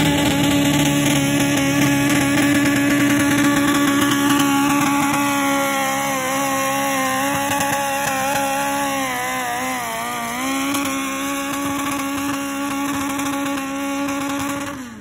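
Mini pulling tractor's engine running hard at high revs as it drags a weight sled down the pulling track. Its pitch sags partway through and then recovers. The sound cuts off suddenly near the end.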